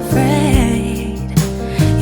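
Background music: a song with a singing voice over sustained chords and a steady bass.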